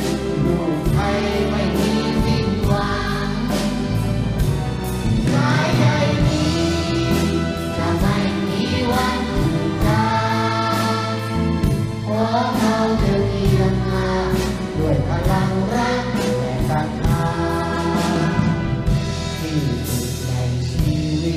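A Thai song performed live: a man singing into a microphone, accompanied by a youth orchestra with violins and joined by a children's choir.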